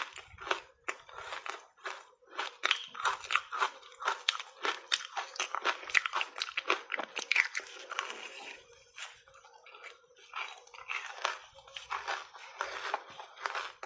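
Close-up crunching and chewing of hard reshaped ice made with matcha tea powder, bitten in big mouthfuls. The crunches come thick and fast for the first half, then thin out into slower, spaced crunches.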